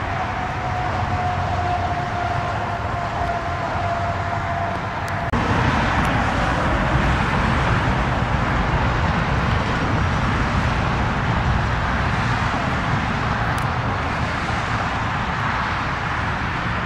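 Jet airliner engine noise: a steady whine that sinks slightly in pitch, then about five seconds in a sudden switch to louder, even engine noise.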